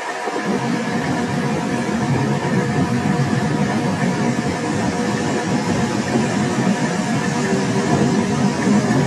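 Metal lathe running while a tool bit turns the face of a spinning steel workpiece: a steady machine hum with a few held tones, and a low rumble that comes in about half a second in.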